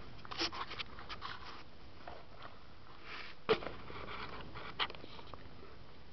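Air-rifle handling noise: light clicks and rustles, then a loud sharp snap about three and a half seconds in and a fainter click over a second later.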